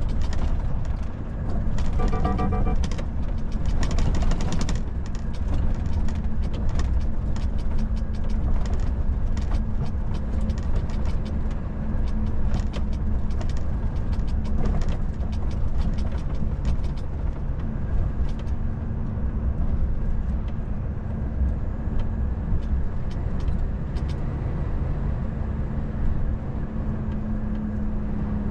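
Volvo FH 460 truck cruising at about 60 km/h, heard from inside the cab: a steady engine drone and tyre rumble, with frequent small knocks and rattles over the road surface. A short pitched electronic tone sounds about two seconds in.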